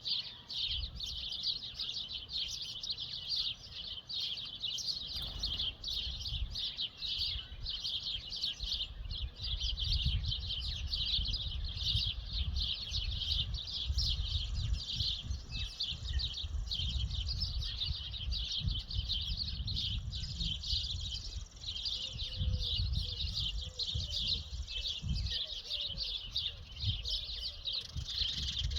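Many songbirds chirping and singing at once in a continuous morning chorus, with a higher thin steady note joining in about halfway through. A low rumble comes and goes underneath.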